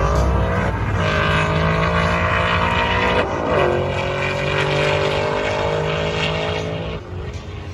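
Drag-racing street cars accelerating hard at full throttle, the engine note climbing with two brief dips at gear changes, about one and about three seconds in. The sound falls away about seven seconds in.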